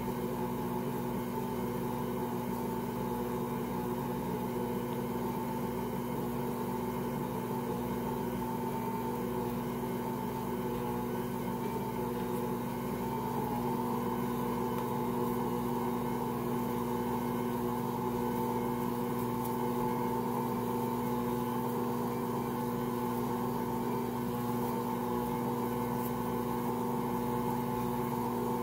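Ankarsrum stand mixer motor running steadily under a heavy load, turning the bowl as the roller and scraper knead a quadruple batch of bread dough: an even hum that holds one pitch.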